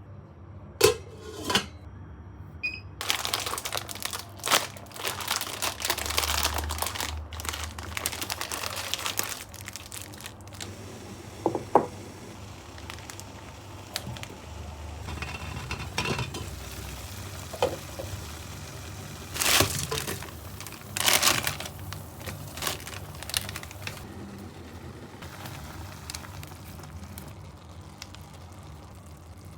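Plastic food packaging crinkling and rustling as it is handled and torn open, with sharp clicks and knocks of dishes now and then.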